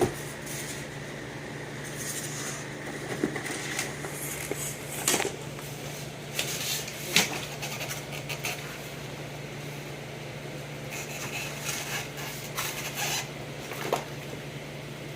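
Scattered rustles, taps and clicks of unpacking a car-audio amplifier and its parts from a box, with two sharper clicks about five and seven seconds in, over a steady low hum.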